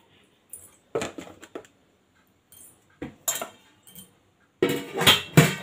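Kitchen items knocking and clinking as they are handled and set down on a stone counter. There are a few separate knocks around one and three seconds in, then a louder run of clatter near the end.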